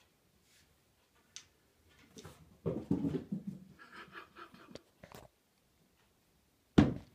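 A cat jumping at a toy on a door and dropping onto a cushion: soft thuds about three seconds in, a light rattling after, and a sharp knock near the end, the loudest sound.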